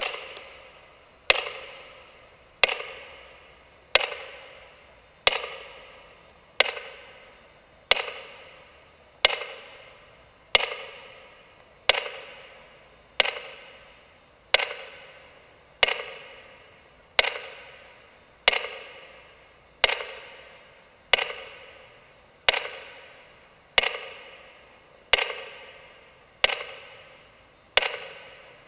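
A steady series of single percussive strikes, about one every 1.3 seconds and some twenty in all, each sharp attack ringing and echoing out for about a second in a large, reverberant hall.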